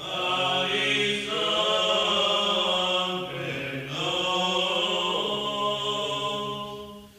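Orthodox Christian chant of a Resurrection hymn, sung in long held notes, with a short break for breath about three seconds in.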